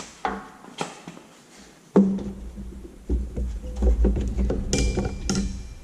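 Clicking, scraping and clattering as a new motorcycle clutch cable is fished by hand through the bike's frame, with a sharp knock about two seconds in and low rumbling handling noise from about three seconds on.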